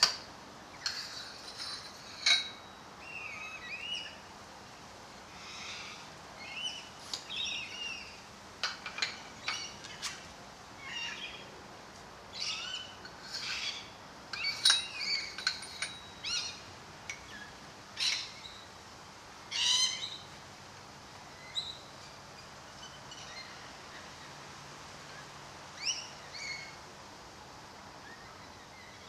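Birds chirping in many short, varied calls, some sliding in pitch, with a few sharp clicks among them.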